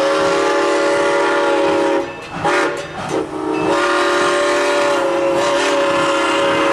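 Steam locomotive's chime whistle sounding a chord of several steady tones: a long blast, a short blast, then another long blast.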